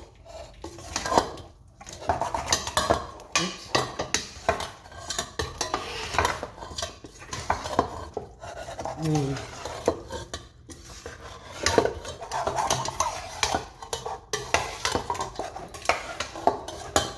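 A metal utensil scraping and knocking against the sides of a stainless steel pot as seasoned chicken wings are stirred and tossed, in quick irregular strokes.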